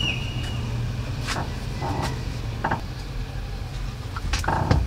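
Truck engine idling steadily with a low hum, heard from inside the cab with the driver's door open. A few light clicks and knocks occur over it.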